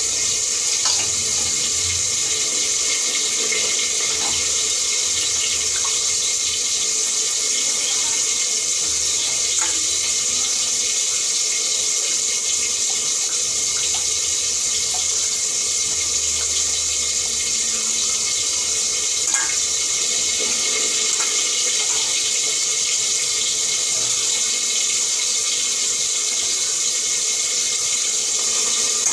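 Water running steadily from a tap while raw chicken pieces are washed by hand in a steel bowl, with a few light knocks.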